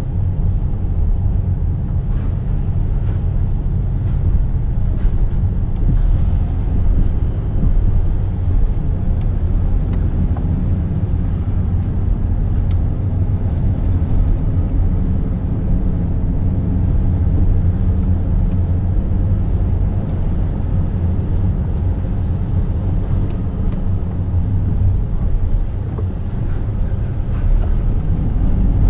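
Car driving downhill, heard from inside the cabin: a steady low rumble of engine and tyre noise.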